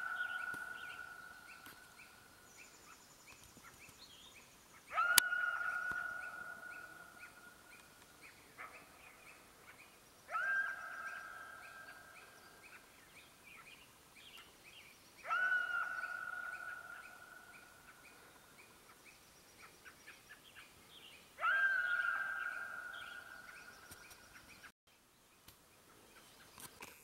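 Coyote calling: each call starts suddenly, rises into one long held note and fades over two or three seconds. The call repeats about every five seconds.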